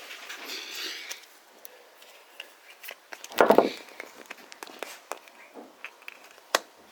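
Small objects being handled: light clicks and rustling, with one louder thud about three and a half seconds in and a sharp click near the end.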